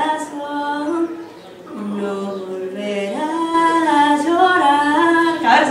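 A woman singing unaccompanied, holding long notes that step between pitches, with a short pause about one and a half seconds in.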